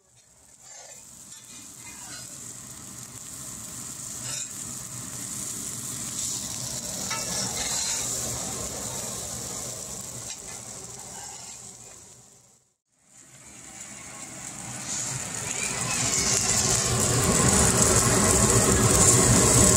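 Food sizzling in hot frying pans, with a few light scrapes of a stirring utensil. The sizzle cuts out for a moment about two-thirds of the way through, then comes back and grows louder near the end.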